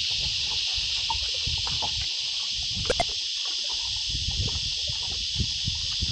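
A steady, high-pitched chorus of insects droning on without a break, over a low rumble, with two sharp clicks about three seconds in.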